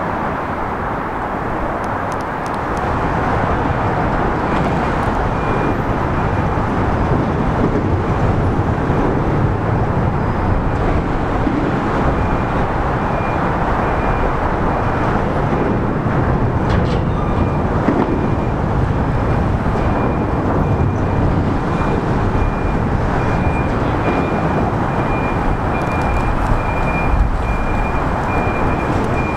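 Railcar mover's engine running as it comes slowly along street track, a steady rumble, with a high-pitched beeping repeating in the background from a few seconds in.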